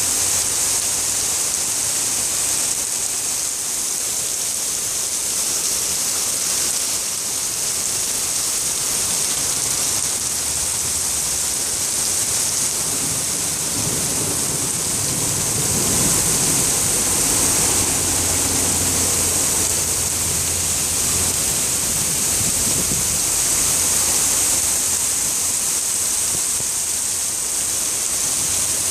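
Steady rain falling, a dense even hiss. A low rumble swells and fades around the middle.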